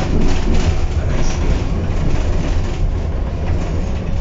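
Inside a Tatra KT4D tram under way: a steady low rumble of steel wheels running on rail, with irregular clicks and rattles.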